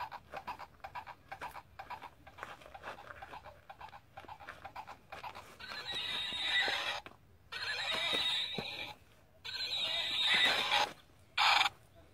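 Horse sound effects: a quick run of clip-clop hoofbeats for about five seconds, then four neighs, the last one short.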